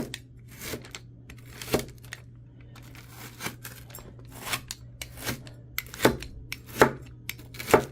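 Pizza cutter rolling through a slab of chocolate-peanut butter rice cereal crunch, giving irregular sharp crunches and clicks, the loudest few near the end.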